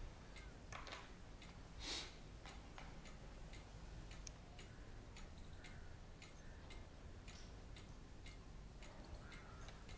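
Quiet room with faint, scattered soft ticks and a brief soft rustle about two seconds in.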